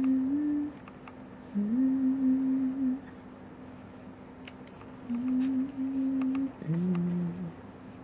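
A person humming a slow, wordless tune in held notes that step up and down, in short phrases with pauses between them. A few faint ticks sound alongside it.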